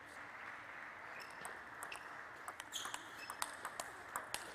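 Table tennis rally: the plastic ball clicking sharply off the players' rubber-covered paddles and the table in quick succession, starting about halfway in, over a steady hiss of hall ambience.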